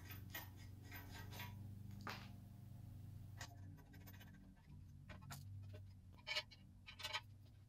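Light clicks and scrapes of hands fitting parts onto a metal lathe bed extension, then a couple of sharper knocks near the end as it is set down on a wooden workbench.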